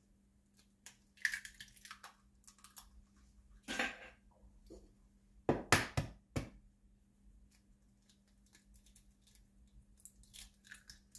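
Eggshells cracked and pulled apart by hand over a plastic measuring cup, two eggs in turn: short sharp cracks and crackles of breaking shell. The loudest run of cracks comes about halfway through, and a smaller one near the end.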